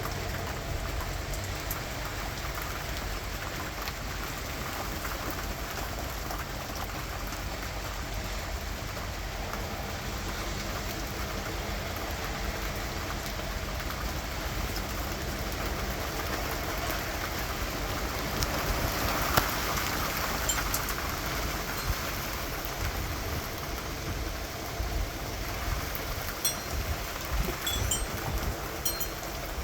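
Steady rain falling, a continuous hiss that swells for a few seconds about two-thirds of the way through. A scatter of sharp drips or ticks comes near the end.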